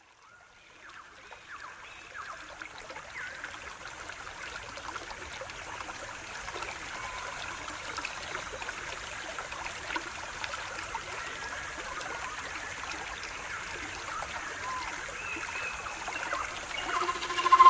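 Trickling stream water, fading in over the first couple of seconds and then running steadily. Sustained flute notes enter near the end.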